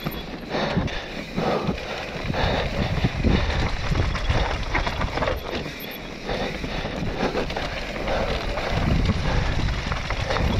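Mountain bike descending a rough dirt singletrack at speed: tyres rolling over dirt and stones and the bike rattling and knocking over the bumps, with wind buffeting the microphone in gusts.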